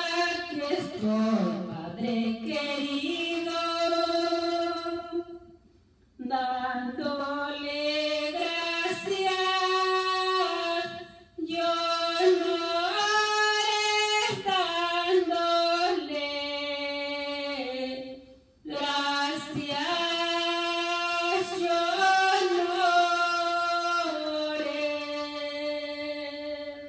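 A woman singing a praise song unaccompanied into a handheld microphone, in four long phrases with held notes and short breaks for breath between them.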